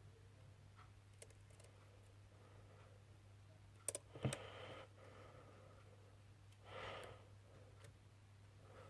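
Near silence with a steady low hum, broken by a few small, sharp clicks about four seconds in, from tools and small phone parts being handled, and a soft exhaled breath near seven seconds.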